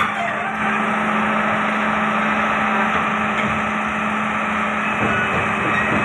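Diesel engine of a Doosan 500LCV excavator running steadily, an even hum with engine noise.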